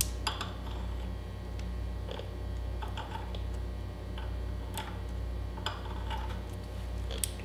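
Thread chaser file scraping and clicking over the damaged threads on the end of a metal spindle, a handful of light, irregular ticks as the threads are dressed, over a steady low hum.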